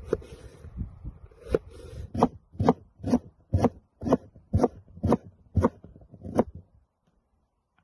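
Cleaver chopping through a vegetable onto a wooden cutting board: about ten sharp knocks, roughly two a second, which stop near the end.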